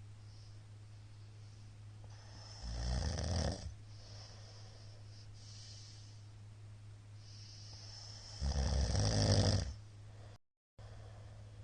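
A middle-aged man snoring loudly in his sleep: two long snores about three and eight seconds in, with quieter breathing between them and a steady low hum underneath.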